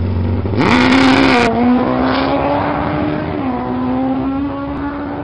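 Motorcycle engine sound effect: a low idle that revs up sharply just under a second in, with a brief burst of hiss as it does, then holds a steady high drone with small dips in pitch.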